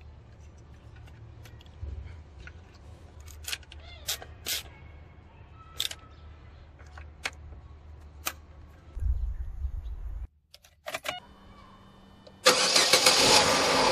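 Small clicks and knocks as a vacuum hose and wiring plug are pushed onto the MAP sensor, over a low hum. About twelve seconds in, the Ecotec 16-valve engine starts up loudly and keeps running.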